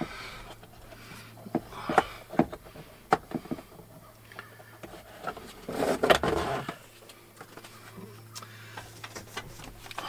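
Plastic air-filter housing and panel air filter of a Polaris Ranger UTV being worked loose by hand: scattered light plastic clicks and knocks, with a longer scraping rustle about six seconds in. A faint steady low hum runs underneath.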